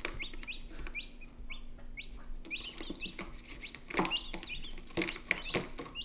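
Quail chicks peeping: a run of short, high calls that slide up and then level off, a few overlapping at a time, with a few short knocks in the second half.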